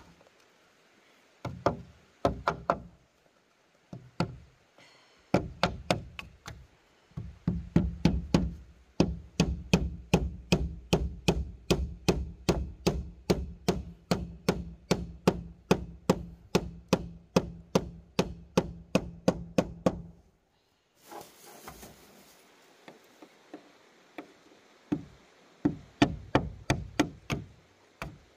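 Rapid, even chopping blows of a blade on wood, about three a second. A few scattered strikes come first, then a long steady run, a pause of a few seconds, and the chopping starts again near the end.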